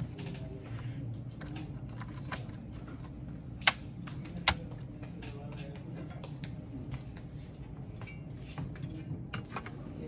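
Small clicks and taps as an SK hynix 8 GB DDR4 laptop memory stick (SO-DIMM) is slotted into the motherboard's memory slot and pressed down. Near the middle come two sharp snaps, a little under a second apart: the slot's retention clips latching as the stick seats. A low steady hum runs underneath.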